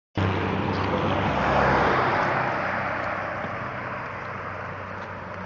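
Road traffic noise: a vehicle going by, its rushing noise swelling to its loudest about two seconds in and then slowly fading, over a low steady hum.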